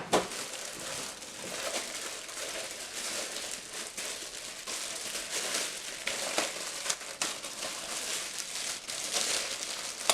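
Packaging wrap crinkling and rustling as it is handled and unwrapped, with scattered sharper crackles.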